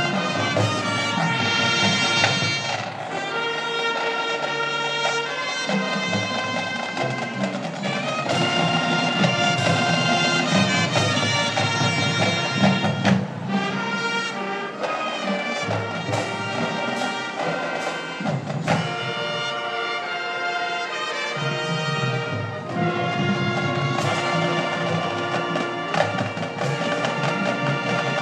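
High school marching band playing a brass-led arrangement, with trumpets and trombones holding chords over drumline percussion.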